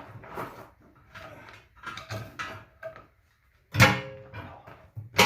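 Steel tools knocking and scraping on a manual tire changer and wheel rim while a tire is being pried off, then two loud metal clanks that ring briefly, the first near the end and the second right at the close.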